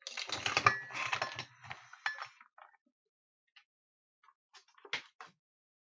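A quick cluster of clinks, clicks and rattles from small hard objects being handled, some with a short metallic ring, lasting about two and a half seconds, then a few scattered clicks near the end.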